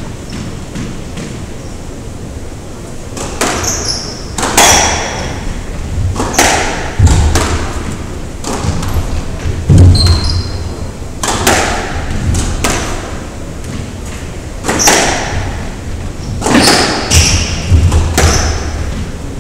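Squash rally: the ball cracking off racquets and thudding against the court walls, one or two hits a second, with brief high shoe squeaks on the wooden floor in a large echoing court. The hitting begins about three seconds in, after a quieter lull.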